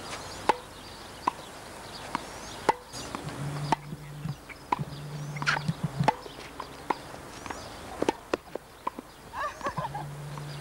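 Tennis rally: sharp pops of the ball struck by rackets and bouncing on the court, coming irregularly about once a second.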